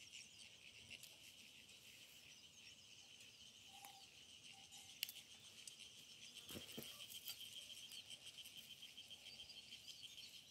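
Faint, steady insect trill, a rapid chirring held on one high pitch, with a single sharp click about five seconds in.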